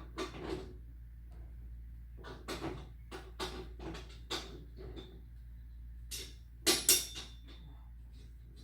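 Irregular metallic clicks and knocks of tools and parts being handled on a garage door opener's chain assembly, with two louder knocks about seven seconds in, over a steady low hum.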